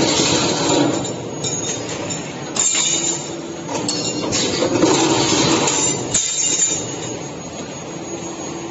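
Automatic 2D CNC wire forming machine running, feeding and bending steel wire: a steady low hum under a rattling metallic noise that swells and eases every two seconds or so, with a few sharp knocks.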